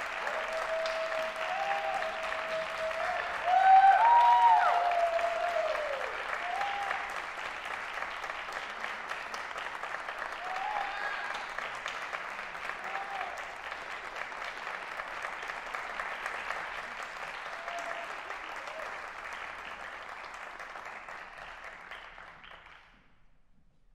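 Audience applauding after a live percussion performance, with a few cheers that are loudest about four seconds in. The clapping slowly thins and dies away just before the end.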